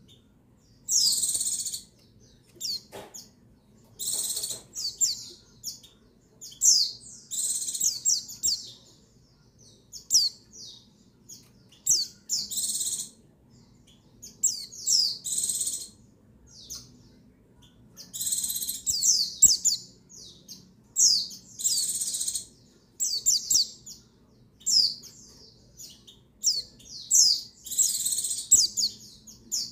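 White-eye (pleci) calling in repeated short phrases of quick, high-pitched chirps and twitters, some of them scratchy and hissing, with brief pauses between phrases. It is a female pleci's call, the kind used to rouse male pleci into song.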